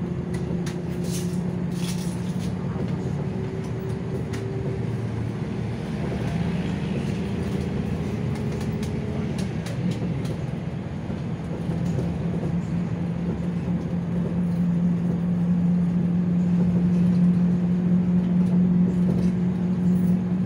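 City bus heard from inside the cabin while driving: a steady engine drone over road noise, with a couple of rattles about a second in. The drone grows louder in the second half as the bus picks up speed.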